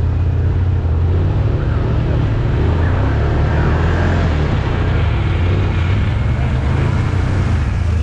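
Can-Am Outlander 1000 ATV's V-twin engine running steadily, a loud, even low drone.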